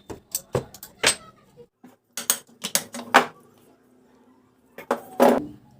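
Metal clinks and knocks from the parts of an opened monoblock water pump motor being handled, about a dozen sharp strikes at uneven spacing, the loudest near the end.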